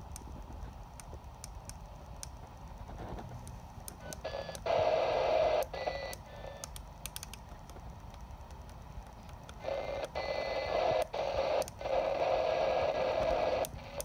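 CB radio receiver audio through a speaker while an unmodulated FM carrier is tuned in with the clarifier: low hiss broken by three bursts of rushing static with a faint tone in it, each about one to two seconds long, the first about five seconds in. Faint clicks run throughout.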